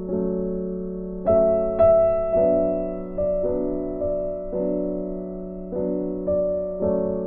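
Background piano music: chords and notes struck every second or so, each left to ring and fade.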